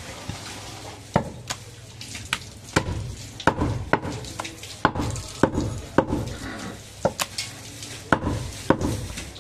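Butcher's cleaver chopping goat meat on a round wooden chopping block: a run of sharp, irregular chops, one or two a second.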